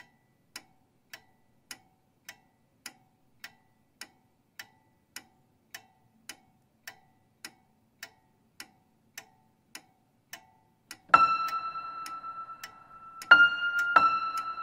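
Pendulum clock ticking evenly, just under two ticks a second. About eleven seconds in, the ticking stops and three high ringing notes are struck, each one left to ring.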